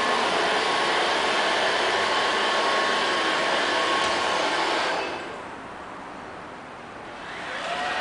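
LL-302 robot vacuum cleaner running: a steady, loud whirring hiss with a faint whine that drops to a much lower level about five seconds in and swells again near the end.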